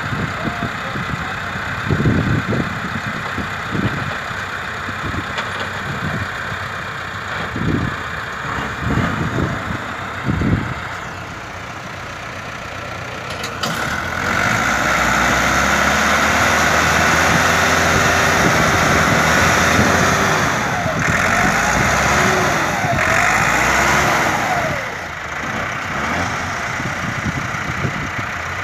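Massey Ferguson 385 tractor's diesel engine running, with uneven low thumps in the first half, then revved hard about halfway through and held loud, its pitch rising and falling near the end.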